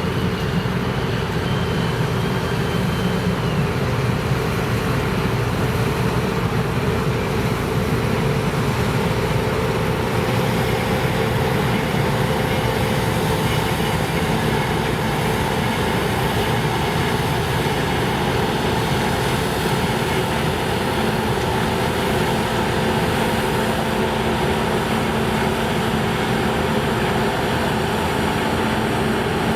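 Claas Lexion combine harvesters running steadily while harvesting: engine and threshing machinery noise with a steady whine over it.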